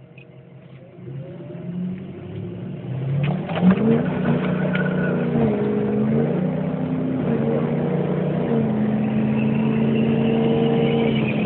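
Turbo-diesel engine of a Bully Dog–tuned Ford F-350 pickup at full throttle, heard from inside the cab, getting louder over the first few seconds as the truck accelerates. Its pitch climbs, then dips and climbs again several times at the upshifts.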